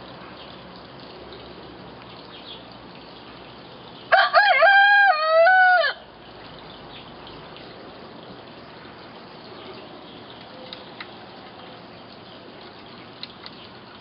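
A hen crowing once, a full rooster-style cock-a-doodle-doo lasting about two seconds, starting about four seconds in. It is a laying hen, not a rooster, making the crow.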